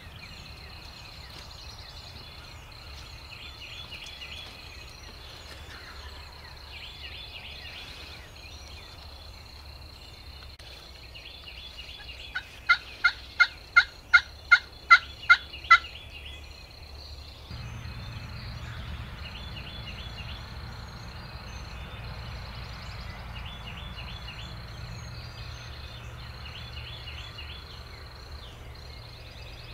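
A run of about nine evenly spaced turkey yelps, some two and a half a second, loud and sharp, near the middle. Faint songbird chirps repeat throughout, and a low rumble comes in about two-thirds of the way through.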